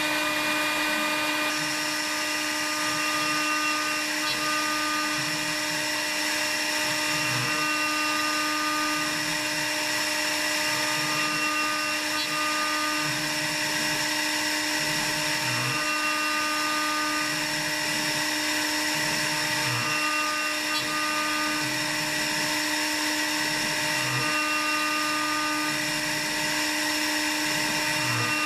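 CNC router's spindle running steadily with a high whine as a 6 mm radius cutter mills a laminated hardwood blank, with a second machine tone that starts and stops every few seconds.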